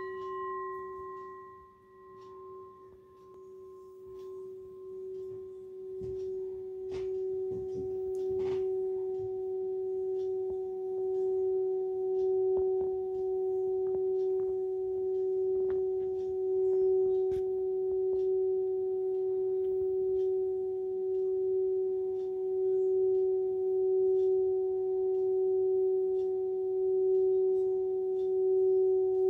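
Hand-hammered singing bowl ringing with one steady low hum and fainter higher overtones that fade over the first few seconds. Then its rim is rubbed with a felt-covered mallet and the bowl sings, the hum building up and holding with a slow wavering swell.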